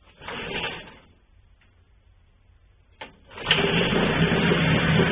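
Veterok 9.9 two-stroke outboard motor starting from cold: after a short rasp near the start and a click, it catches about three and a half seconds in and runs steadily.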